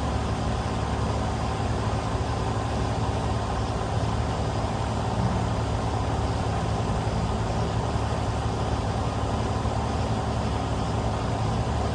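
Steady low hum and hiss of a running engine, like a vehicle idling, with no thunder or other sudden sounds.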